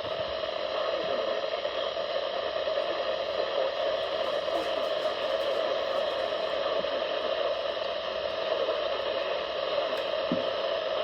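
Steady hiss of static from a weather radio receiver, with no clear voice coming through.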